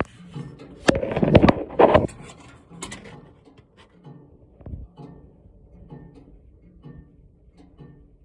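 Strange sounds inside a shut-off gas fireplace unit: a loud burst of scraping and rustling with sharp clicks about a second in, then faint low knocks repeating at an even pace.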